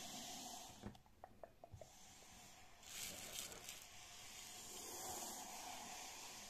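Fingertips scratching and rubbing a crocheted yarn cover fitted over a glass, a soft hissing scratch with a few light taps about a second in and a louder scratching spell around the middle.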